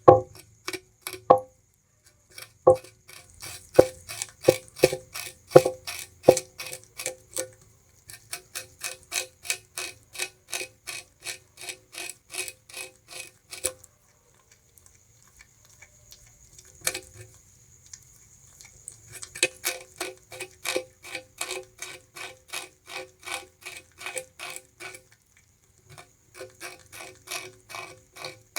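Bamboo rat chewing sugarcane, close up: steady crunching at about two to three bites a second, stopping twice for a second or two.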